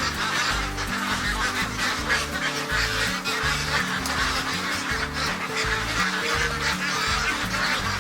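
A large flock of farmed ducks quacking and calling all at once, a dense, continuous din.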